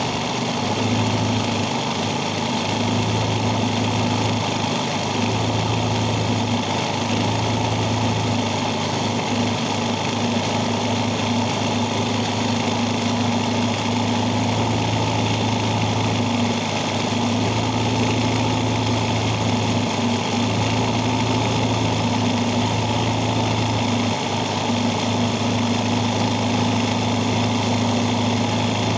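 Electric sewing machine running continuously while stitching hand-guided embroidery: a steady motor hum with the needle mechanism working, easing briefly a few times.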